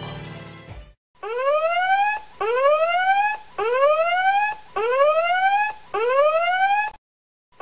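Whooping alarm sound effect: a pitched tone rising in a sweep, repeated five times at about one per second, as the tail of background music fades out in the first second.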